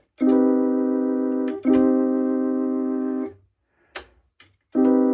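Casiotone 401 electronic keyboard playing the same steady note three times, each held about a second and a half, with a sharp click in the pause before the third. Vibrato is switched on with the delay setting, so the notes begin without wobble.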